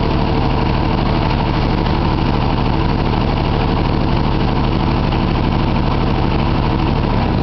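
Diesel engine of a custom-built tracked marsh harvester idling steadily.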